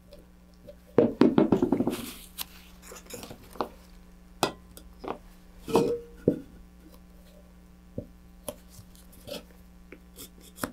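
Handling noises of epoxy work on fiberglass rocket parts: a wooden stick scraping and tapping in a small epoxy cup, and scattered knocks and clicks as the parts are handled. A quick run of taps about a second in is the loudest.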